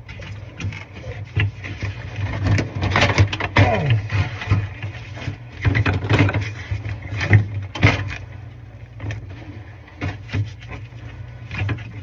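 Knocks, clicks and scraping of parts being handled during installation of a refrigerator evaporator fan motor, with the loudest knocks about six and eight seconds in, over a steady low hum.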